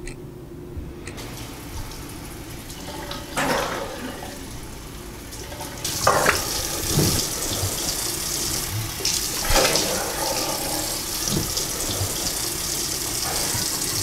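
Water running from a tap into a bathroom sink, starting about a second in and growing louder about six seconds in, with a few louder splashes.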